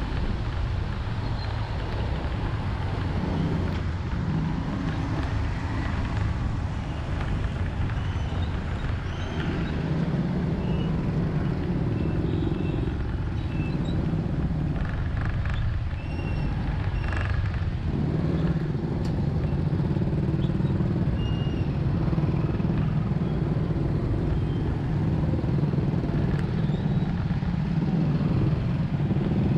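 A vehicle's engine running steadily, with road noise and the surrounding traffic of a drive through city streets. The engine drone grows louder about a third of the way in, drops away briefly a little past halfway, then returns.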